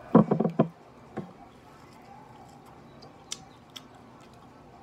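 Eating by hand: faint scattered clicks of chewing and of fingers picking at rice and fried ribs on a plate, after a brief loud burst near the start.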